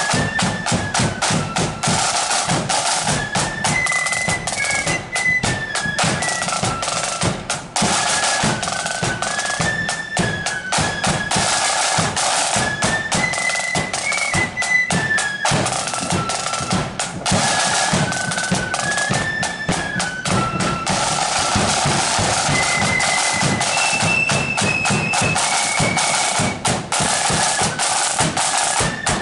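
Marching flute band playing a tune: flutes carry a melody that rises and falls over rapid snare-drum rolls and bass-drum beats.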